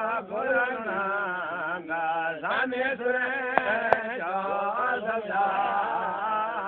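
A singing voice chanting a melodic devotional chant, its pitch wavering and gliding up and down over a steady low note, with two sharp clicks about four seconds in.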